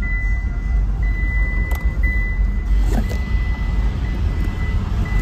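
A car driving slowly, a steady low rumble of engine and road, with a faint thin high tone that breaks off now and then and a couple of light clicks.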